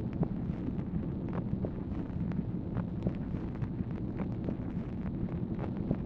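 Steady rumbling hiss with frequent small clicks and crackles: surface noise of an old Dictabelt recording of a telephone line, heard in a pause between voices.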